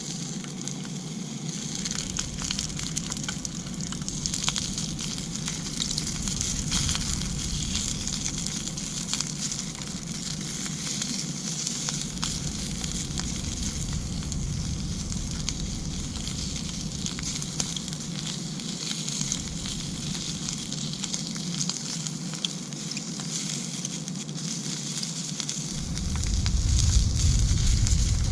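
A steady crackling hiss, with a low rumble that comes and goes and is loudest near the end.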